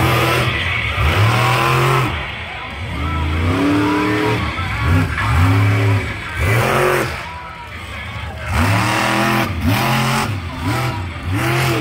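Stinger Unleashed monster truck's engine revving hard in a rapid series of bursts during a freestyle run, its pitch rising and falling with each burst and easing off briefly about eight seconds in.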